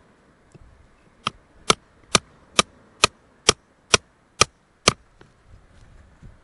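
Hammer striking a hand-held cold chisel nine times, about two blows a second, each a sharp metal-on-metal crack with a short ring. The chisel is being driven into hard, sticky clay around an ammonite nodule.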